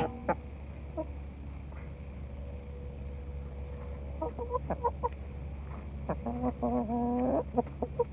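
Hens clucking: a quick run of short clucks about four seconds in, then one drawn-out, wavering call, and a few more short clucks near the end.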